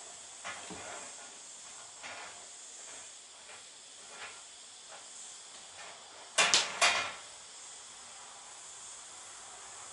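Curtain fabric rustling in short scrapes as it is handled and gathered onto a wire, then two loud quick swishes of the cloth about six and a half seconds in. A steady high hiss sits underneath.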